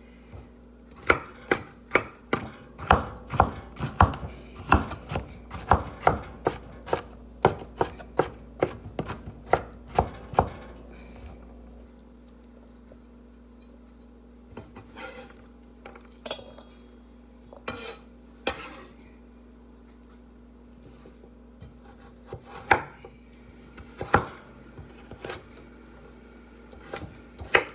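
Chef's knife chopping carrots on a wooden cutting board: a steady run of knocks of the blade on the board, about two a second, for the first ten seconds or so. Then a lull with only a few scattered taps, and the chopping picks up again near the end.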